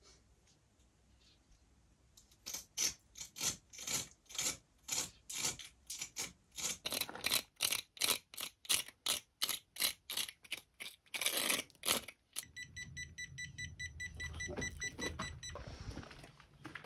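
A small hand tool scraped against a granite stone wall in short, sharp strokes, about two a second, with one longer scrape near the end of the run. A high electronic beeping follows for about three seconds.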